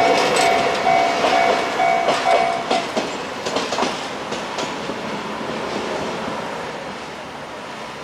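Japanese level-crossing alarm ringing its repeating electronic ding, which stops about three seconds in, as a freight train's wheels clack over the rail joints. The clacking thins out and the train noise fades away.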